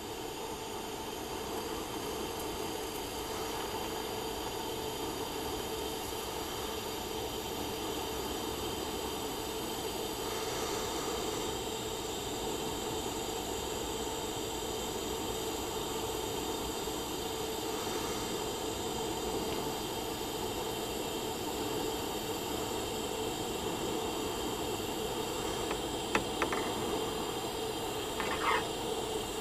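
TIG welding arc on steel, a steady, even hiss with a hum under it, the quiet arc that the welder calls peaceful and calming. A few faint clicks near the end.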